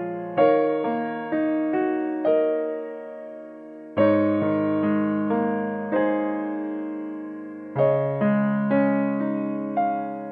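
Background piano music: slow single notes and chords, each struck sharply and left to fade, with fuller chords struck at about four and eight seconds in.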